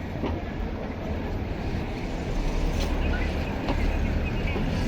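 Low, steady rumble of a passing heavy vehicle in street traffic, growing louder after about two and a half seconds.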